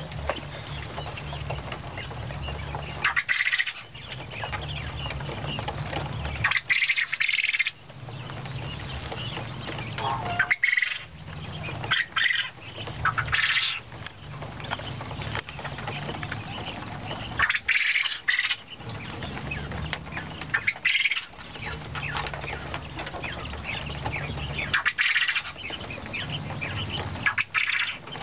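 Caged quail squawking and flapping in short, harsh bursts every few seconds as a stick pushes through the flock, over a steady low hum.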